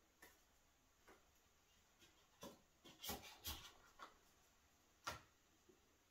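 Light handling noises of a cardboard box and its foam insert: a few scattered soft taps and rustles, busier around three seconds in, with one sharper tap about five seconds in.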